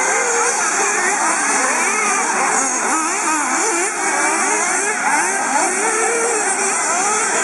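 Several 1/8-scale nitro RC buggy engines racing together, a high buzzing whose pitch keeps rising and falling as the cars accelerate and slow through the corners.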